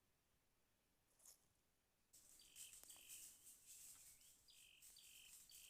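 Hand-made imitation of a female red junglefowl's call: five short whistled notes, each dropping in pitch and then holding, beginning about two seconds in over a breathy, crackly hiss.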